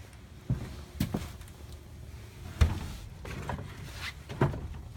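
A few dull knocks and thumps spaced irregularly over a low steady hum, the loudest about halfway through, as of things being handled and set down on a concrete floor.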